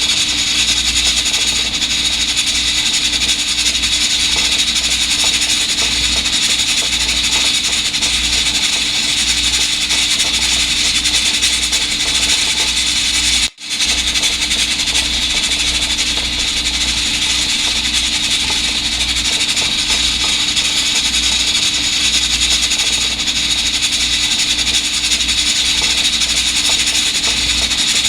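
Continuous rubbing and scrubbing of an electric pressure rice cooker being wiped clean, with a very short break a little before halfway.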